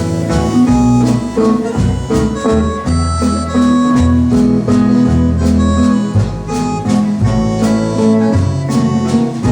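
Instrumental break of a slow country-and-western waltz, played live: a held, sustained melody line over plucked strings and a bass line that changes note about once a second.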